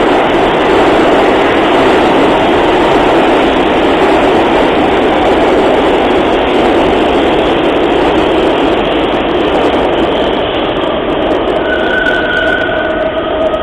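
New York City subway train running along the platform, a loud steady noise of wheels on rail. Several steady high whining tones come in near the end.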